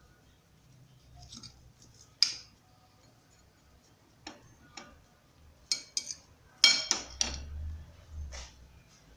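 Kitchen utensils and dishes being handled: a scattering of sharp clicks and knocks, with the loudest cluster of taps about two-thirds of the way through.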